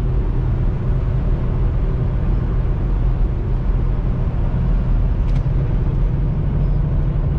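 Steady low rumble of a semi-truck's diesel engine and road noise, heard from inside the cab at highway speed, with one faint click about five seconds in.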